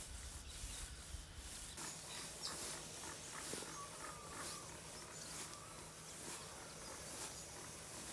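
Faint outdoor lakeside ambience with a few short, high bird chirps and scattered soft clicks. A low rumble, like wind on the microphone, fades out about two seconds in.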